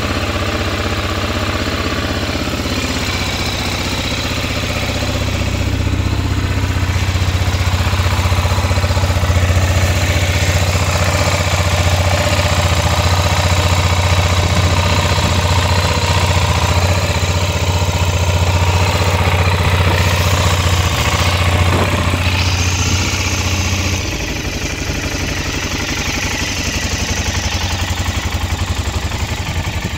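BMW F650 Funduro's single-cylinder Rotax four-stroke engine idling steadily. The sound is louder through the middle and drops back about 24 seconds in.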